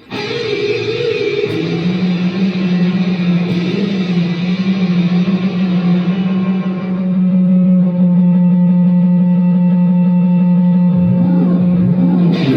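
Music with a guitar-like sound, run through effects: one low note held steady for about ten seconds, bending in pitch near the end.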